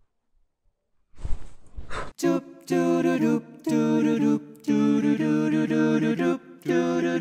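A short breathy rush of air about a second in, then a cappella singing: several voices holding chords in harmony with no instruments, breaking off briefly a few times.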